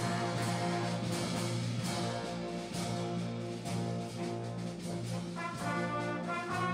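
Concert wind band playing: brass holding full sustained chords, with glockenspiel notes struck by mallets. About five seconds in, a higher melody line comes in over the chords.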